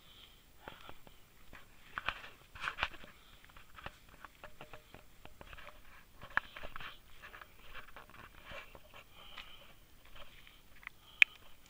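Footsteps on a stony, grassy hillside path with grass rustling, an irregular run of crunches and clicks, and one sharp click near the end.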